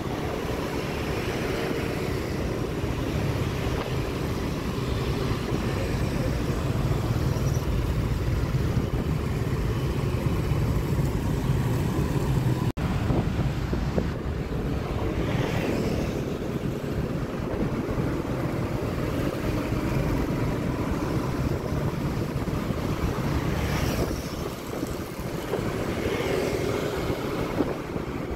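Steady road rumble of travelling along a busy city street: low traffic and engine noise with wind buffeting the microphone, swelling now and then as motorbikes pass.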